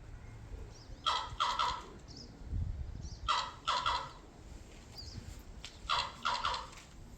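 A bird calling again and again, each call a quick run of two or three harsh notes, repeated about every two and a half seconds.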